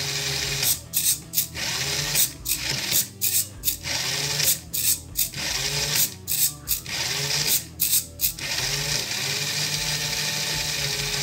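SG90 micro servo buzzing in short bursts of gear noise as it sweeps the ultrasonic sensor from side to side, over a steady low hum. The servo bursts stop about eight and a half seconds in, leaving the hum.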